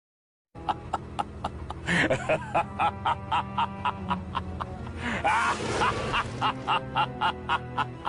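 Short music clip with a steady clicking beat, about three beats a second, over held tones, with squeaky chirping glides in the middle; it starts after half a second of silence.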